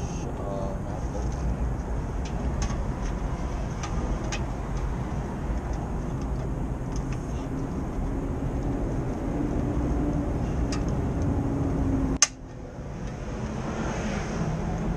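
Steady low background rumble with a few faint clicks, and one sharp click about twelve seconds in, after which the rumble briefly drops before building back.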